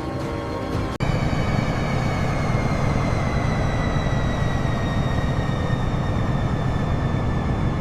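Aircraft turbine engines running at high power: a steady multi-tone hum, then, after an abrupt cut about a second in, a loud roar with a high whine that slowly falls in pitch.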